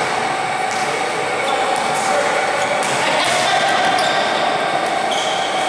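Indoor basketball game: a basketball bouncing on the court and short high sneaker squeaks, over indistinct voices echoing through the large gym hall.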